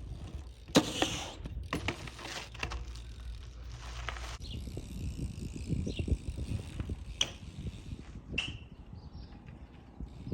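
BMX bike being ridden: a steady rolling rumble with a sharp, loud knock about a second in, then noisy scraping for a few seconds and a few scattered clicks.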